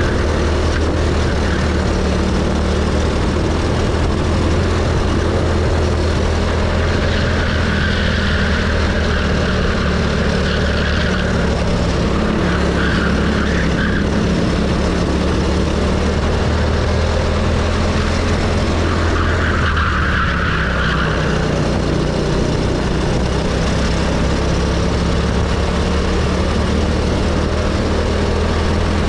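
Go-kart engine running at speed, heard from on board the kart, its pitch shifting slowly up and down as it laps.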